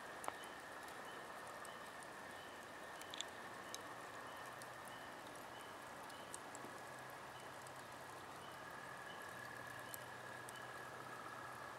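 Faint crackling of glowing fire embers: scattered soft snaps over a steady hiss, with a faint high chirp repeating evenly about twice a second.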